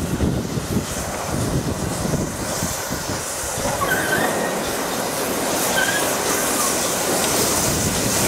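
Railway carriage wheels running on the track, heard from an open window of the moving train: a steady rumble with rhythmic clatter over the rail joints, then brief high squeals of the wheels on the curve from about four seconds in.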